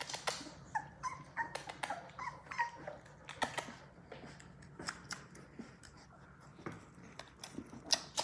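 Three-week-old Labrador Retriever puppies giving short, high squeaks and whimpers, several in quick succession over the first few seconds. Soft clicks and scuffles come from the puppies moving about together.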